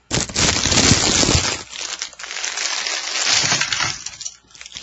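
Loud crinkling and rustling handling noise close to the microphone, with scattered clinks, in two long stretches with a short lull about two seconds in.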